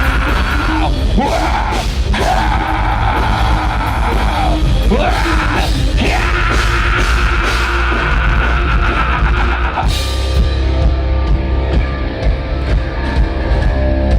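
A live heavy metal band playing loud: distorted electric guitars, bass and drums with crashing cymbals, with some yelling. About ten seconds in, the drums and cymbals stop and a held chord is left ringing out as the song ends.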